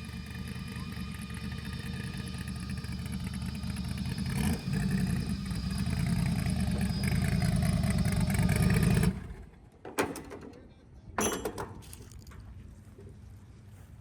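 A car engine running steadily, getting slightly louder, then cut off suddenly about nine seconds in. After that it is much quieter, with a few short knocks.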